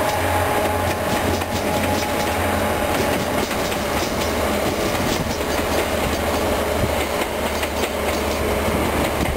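Passenger train carriages rolling past, wheels clicking over the rail joints over a steady mechanical drone; the last carriage, carrying a red tail light, goes by near the end.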